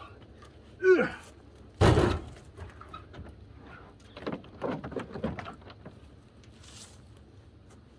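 A man grunts with effort while heaving a heavy round of firewood, and about two seconds in it lands on the pickup's tailgate with a heavy thud. Further knocks and strained grunts follow as he shoves the log into the truck bed.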